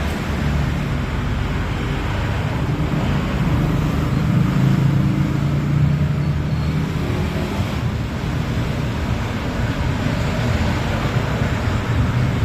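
Steady low background rumble with an engine-like hum, a little louder about four to seven seconds in.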